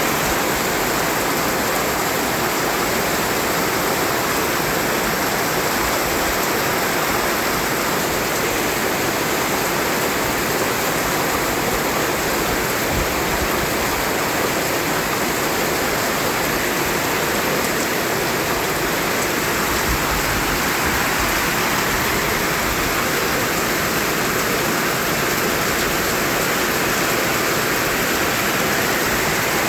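Continuous white noise for baby sleep: a steady, even hiss across the whole range, holding the same level throughout.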